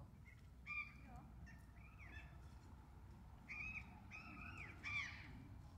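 Animal calls: about half a dozen short, harsh, cawing calls, some in quick pairs, the loudest near the end, over a low background hum.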